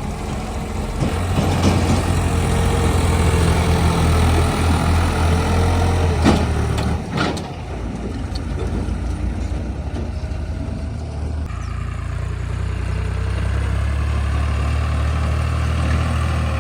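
Heavy diesel engine running hard and steady, swelling about a second in and easing briefly past the middle, with two sharp metallic knocks about six and seven seconds in.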